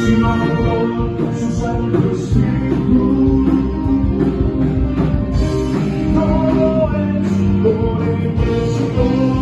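Live worship band playing a song in rehearsal: guitar and other instruments with singing, loud and continuous.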